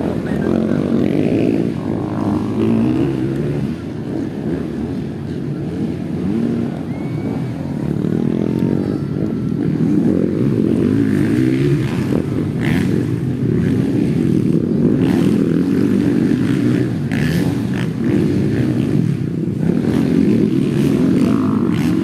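Several motocross dirt bike engines running and revving together, a continuous engine din with a few brief sharp sounds in the second half.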